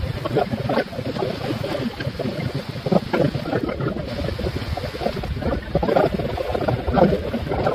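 Busy diner background: a steady murmur of indistinct voices, with a couple of brief sharper clinks or knocks.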